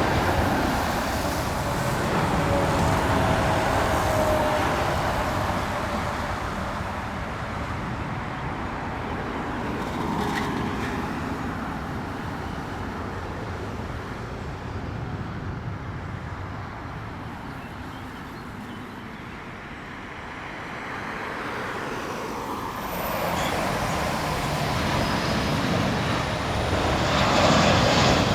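Jet airliner engines at takeoff power, their roar fading slowly as the aircraft climbs away, with a whine that falls in pitch during the first few seconds. Near the end the jet noise builds again.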